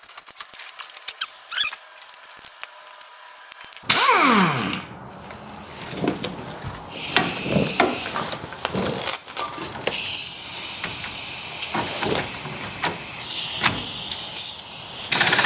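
Rusted fender bolt on a 1973 Ford F100 being wrenched loose: metal clicks and scrapes, with loud squeals falling in pitch as the stuck bolt gives, about four seconds in and again near the end.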